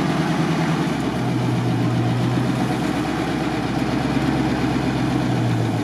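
GAZ-66 truck engine running steadily at low revs, its low note shifting about a second in and again near the end.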